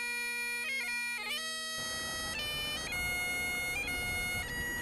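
Bagpipes playing a slow tune: a steady drone under the chanter's melody, which moves between held notes with quick grace-note flicks between them.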